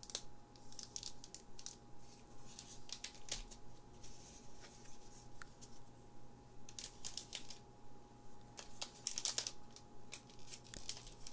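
Close-miked handling of shrink-wrapped card sleeves and other plastic packaging: irregular crinkles, light taps and sharp clicks in small clusters. A faint steady hum runs underneath.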